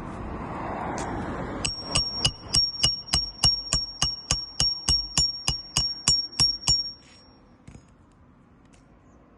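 A hard, resonant object is struck in a fast, even series of about twenty ringing strikes, roughly four a second, for about five seconds. The high ring hangs on briefly after the last strike.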